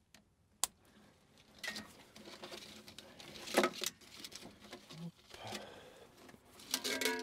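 Gloved hands handling a wire harness in corrugated plastic loom: scattered rustling and small clicks, with one sharp click about half a second in. A few plucked guitar notes of background music come in near the end.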